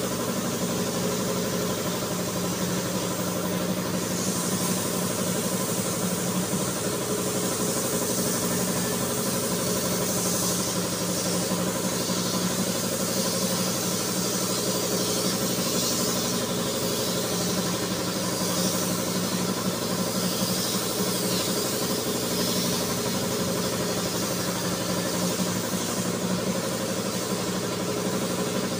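Air compressor running steadily with a constant hum, and compressed air hissing from the gun on the air hose, swelling and easing off from about four seconds in.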